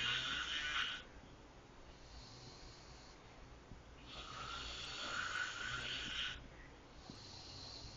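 Snoring in a slow, repeating rhythm: one snore dies away about a second in, a strong one lasting about two seconds comes about four seconds in, and a fainter one starts near the end.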